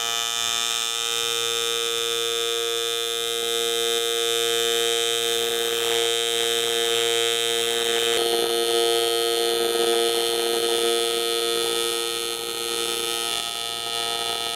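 AC TIG welding arc from a Lincoln Invertec V205-T welder running on aluminum plate, a steady, even buzz set by the welder's 120 hertz AC frequency.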